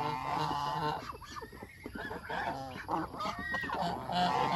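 Several domestic geese honking, their calls overlapping and repeating.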